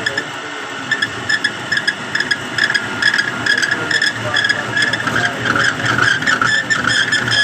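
Machine noise: a steady high whine that pulses irregularly, over a rough, noisy low rumble.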